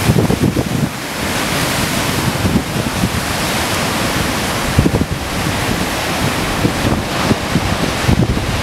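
Large storm swells breaking and crashing against rock cliffs, a continuous loud wash of surf and spray. Strong wind buffets the microphone in irregular gusts.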